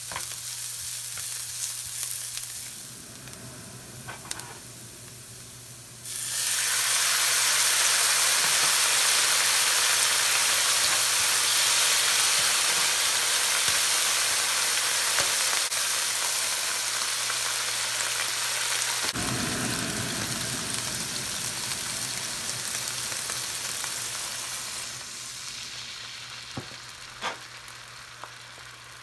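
Chopped onion frying in a nonstick pan, stirred with a spatula. About six seconds in, a dark sauce hits the hot pan and a loud, even sizzle starts, dying down slowly over the last few seconds. A steady low hum runs underneath.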